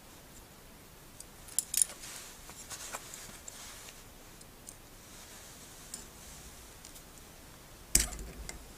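Circlip pliers working a steel circlip into its recess in a ball valve body: a few sharp metallic clicks and snaps, the loudest about eight seconds in.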